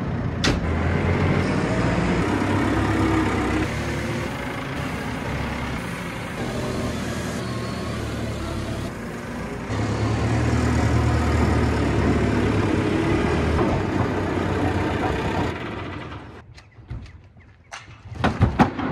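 JCB telehandler's diesel engine running, its revs stepping up and down as it works, louder for a few seconds in the middle. Near the end it falls much quieter, with a few sharp knocks.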